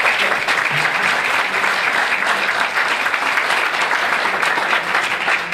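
Audience applauding: many hands clapping in a dense, even patter that dies down near the end.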